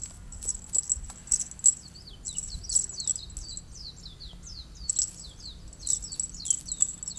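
A small bird singing: a quick run of short, high, falling chirps, several a second, starting about two seconds in and going on nearly to the end.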